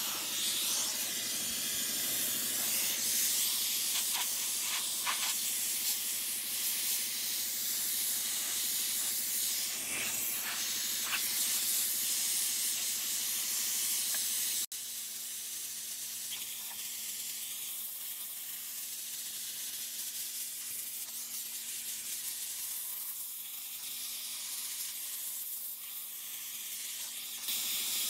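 Central Machinery 20-pound sandblaster's nozzle blasting media against rusty steel: a steady, high hiss of compressed air and grit. It breaks off for an instant about halfway through and is a little quieter afterwards.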